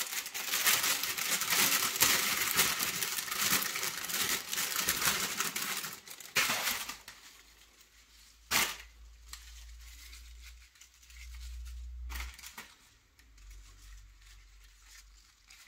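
Thin plastic herb bag crinkling and rustling as it is handled and basil leaves are pulled out, for about the first seven seconds. Then it goes quiet apart from one sharp click.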